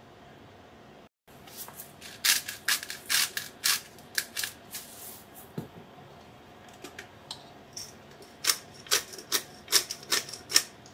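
Salt-and-pepper grinder being twisted over a saucepan: rapid crunchy clicks as the peppercorns crack, in two bursts, one about two seconds in and another near the end.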